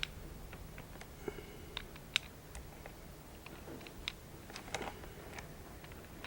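Irregular light clicks and taps, about one or two a second, over a low steady rumble.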